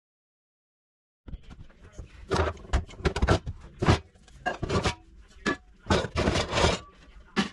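Silence for about the first second, then frying pans handled in a wooden kitchen cabinet: a string of knocks and clatters with scraping and rubbing as the pans are moved against the wire pan rack and shelf.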